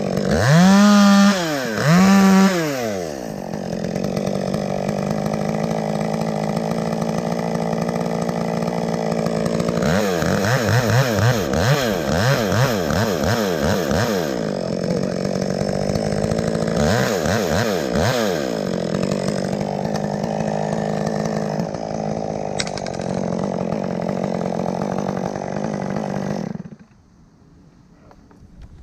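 Two-stroke chainsaw cutting maple wood: revved hard twice, then held at high speed through a cut with the pitch swinging up and down as it works, and cut off sharply near the end.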